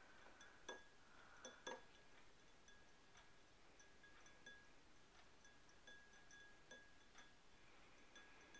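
Light taps of fingernails against a drinking glass: a few soft clinks in the first two seconds, then only faint scattered ticks.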